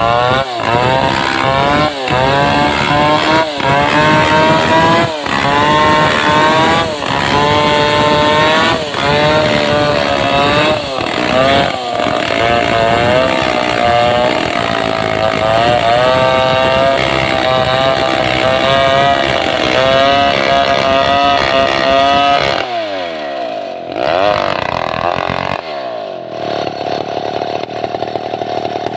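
Stihl 070 chainsaw, a big two-stroke, cutting at high revs while ripping a red sengon log lengthwise, its engine note sagging and recovering every second or two under load. Near the end the revs fall away twice, then settle to a steadier low note.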